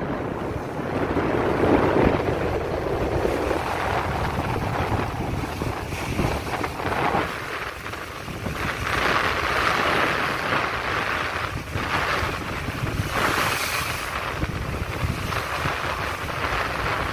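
Strong wind rushing over the microphone along with the wash of big sea waves, rising and falling in gusts.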